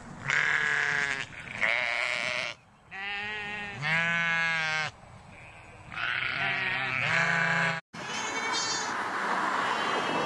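Sheep bleating: about five wavering, quavering bleats in quick succession. About eight seconds in, the sound cuts to a steady noisy background with a short higher call.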